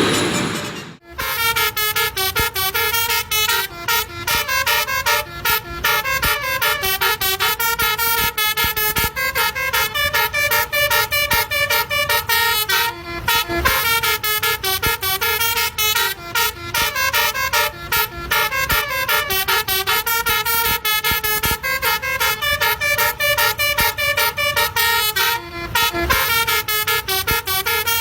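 Basuri musical bus horn, a multi-trumpet 'telolet' horn, playing a fast tune of short notes that jump from pitch to pitch. It begins about a second in, after a brief gap, and carries on without stopping.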